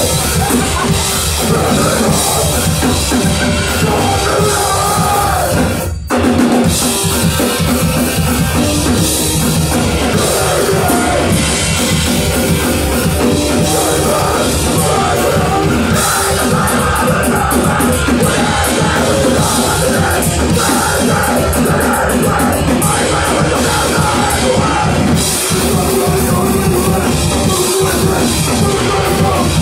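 Punk band playing live in a club: distorted electric guitars, bass and a pounding drum kit, loud and dense. The sound cuts out for an instant about six seconds in, then the music carries on.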